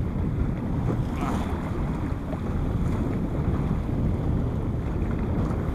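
Small motorboat under way: a steady low rumble of the boat running through choppy water, with wind buffeting the microphone.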